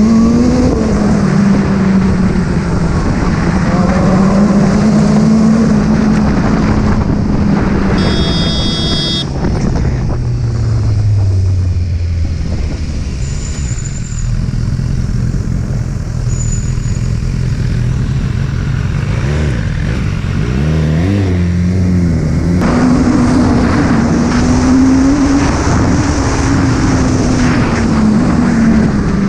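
BMW motorcycle engine running under way, its revs rising and falling with the road, over steady wind rush on the microphone. The revs drop lower through the middle, then climb again in a few quick rising steps about twenty seconds in.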